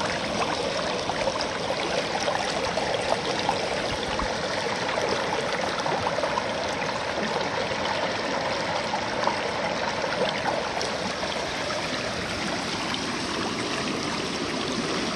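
Shallow river running fast over rocks and through a small aluminium gold sluice box set in the current: a steady rush of water with many small splashes and trickles.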